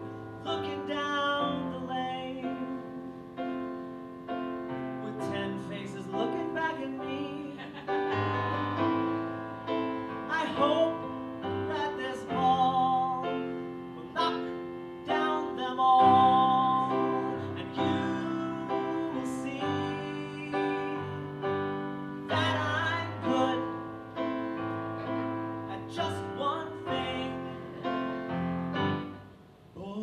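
Piano accompaniment with a woman singing into a microphone, her held notes wavering with vibrato. The music breaks off briefly near the end.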